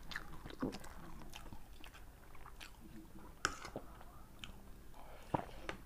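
Close-up eating sounds: two people chewing noodles, with small irregular clicks of forks against ceramic plates, the sharpest about halfway through and again near the end.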